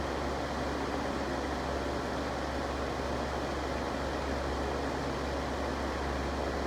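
Electric fan running steadily: a constant rush of air over a low, even motor hum.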